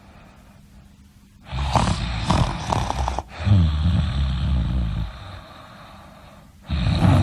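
A person snoring, with loud rattling snores about a second and a half in and again near the end. Between them comes a lower, pitched rumble that wavers in pitch.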